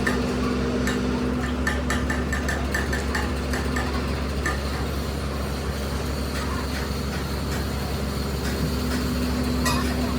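An engine idling steadily, with light metallic taps and clinks over the first few seconds and one more click near the end.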